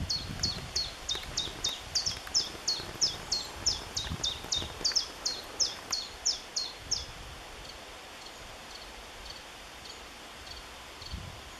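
A songbird singing one long run of identical quick notes, about four a second, each a high note sliding down followed by a lower one. The run stops about seven seconds in, leaving only faint, distant notes over a light rustle of wind.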